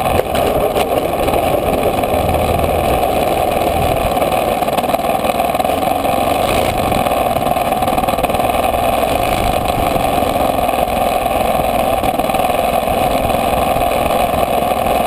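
Spacewalker model airplane's fuel-burning engine running steadily, heard at very close range by a camera mounted on the plane's nose, as a loud, even, high-pitched drone.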